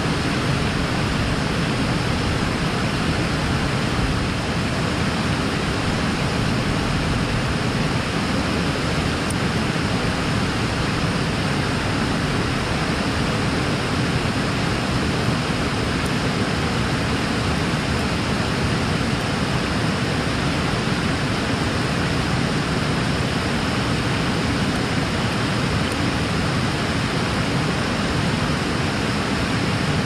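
Steady rush of a mountain cascade and river: even, unbroken falling-water noise.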